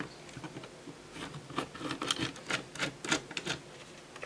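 Small irregular clicks, taps and rubbing from a cassette deck's plastic and metal parts being handled as it is taken apart, busiest in the middle.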